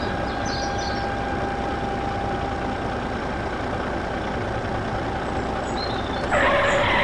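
Toy tractor engine running steadily with a low rumble and a faint whine. About six seconds in, a louder hissing sound with a tone in it comes in.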